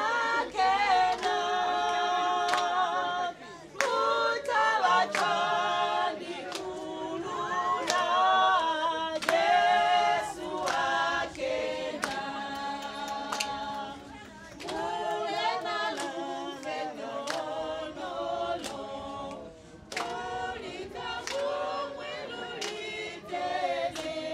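A group of voices singing together unaccompanied, choir-style, over a steady beat of sharp strokes.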